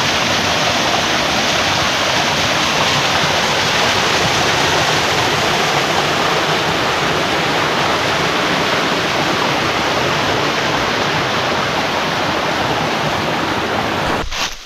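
Rushing water of a mountain stream or waterfall, a loud, steady rush that cuts off suddenly near the end.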